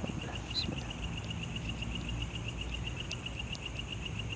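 An insect chirping steadily in rapid, even pulses, about ten a second, with faint scattered ticks of other night insects above it and a low rumble underneath.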